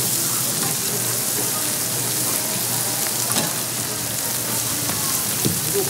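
Korean street toast frying on a hot flat griddle: a steady sizzle, with a few light clicks.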